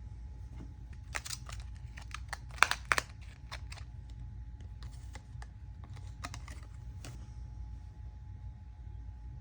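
A run of small hard clicks and light rattles, irregular and spaced out, with the loudest two clicks about two and a half to three seconds in, from computer parts being handled during assembly. A steady low hum lies underneath.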